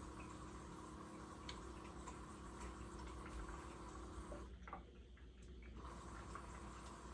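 LG TurboWash front-loading washer running a wash cycle. The Direct Drive motor and circulation pump give a steady faint whine, with small drips and splashes of water in the drum. The whine cuts out for about a second just past the middle, then resumes.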